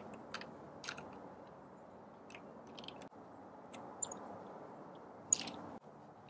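Light scattered clicks and scrapes of a flathead screwdriver and fingers working a loosened car battery terminal clamp off its post, the sharpest click about five seconds in, over a faint steady hiss.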